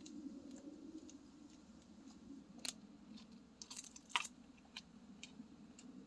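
Faint footsteps on a concrete sidewalk, short gritty steps about two a second, over a low steady rumble.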